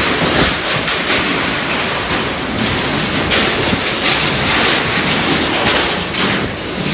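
Tornado wind blowing hard: a loud, continuous rush of noise that surges and eases every second or so.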